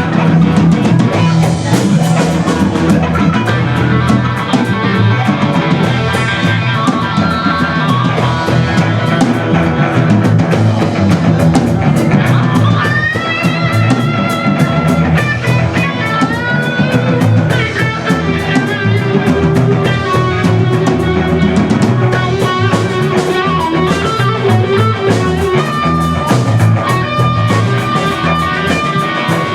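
Rock band playing: electric guitar lead over drums and bass, with bent, wavering guitar notes in the middle.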